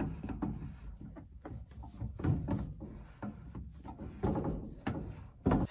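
Blue plastic whole-house water filter housing being handled and fitted back up onto its filter head by hand: scattered plastic knocks and scrapes, with a louder knock near the end.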